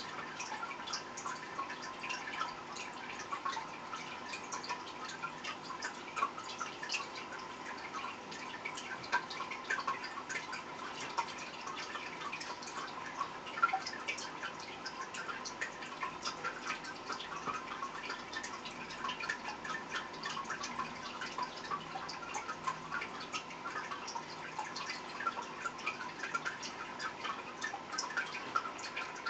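Aquarium water dripping and trickling in quick, irregular drops, over a faint steady tone.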